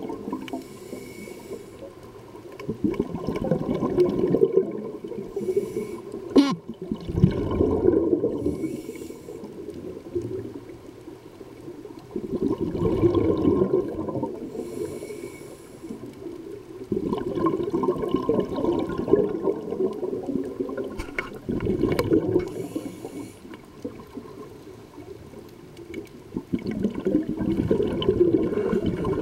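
Scuba diver breathing through a regulator underwater: a faint hiss on each inhale, then a loud rush of exhaled bubbles, repeating about every four to five seconds.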